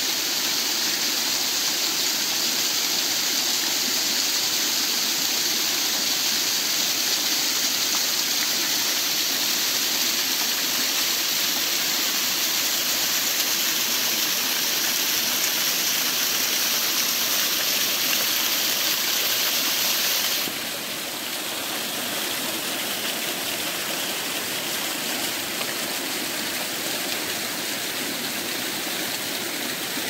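Waterfall cascading down a rock face and splashing over rocks into a shallow pool: a steady rushing hiss of falling water. About two-thirds of the way through it turns abruptly a little quieter and duller.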